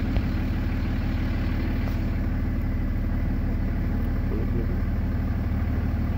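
Car engine running steadily at idle or a slow crawl, a low even hum heard from inside the car with the window down.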